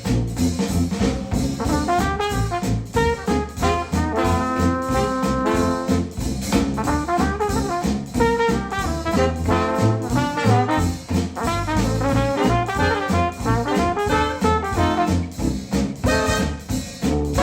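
Brass-led, jazzy instrumental music with a steady beat, played back through Wharfedale Denton 80th bookshelf speakers driven by a Sony STR-DH190 amplifier.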